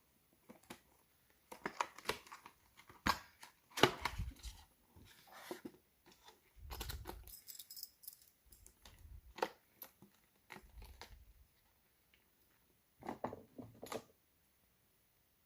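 A motorcycle alarm padlock and its packaging being handled: scattered rustles, clicks and small metal knocks, with no alarm tone.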